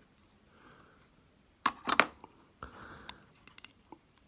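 Hand tool prying at a battery glued into a small plastic sensor housing: two sharp clicks or cracks close together, then a brief scraping and a few small ticks.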